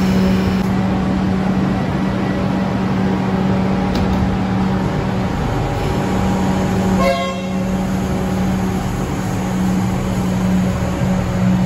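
Melbourne suburban electric train pulling out of an underground station platform, a steady low hum and rumble as the cars move off. About seven seconds in comes one short tone, like a brief horn toot or squeal.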